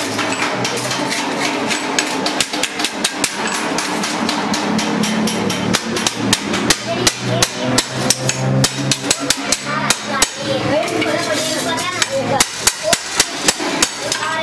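Small hand hammer beating a stainless steel sheet against a steel bar stake, shaping a milk-can part: many quick metallic blows, louder and in fast runs in the second half.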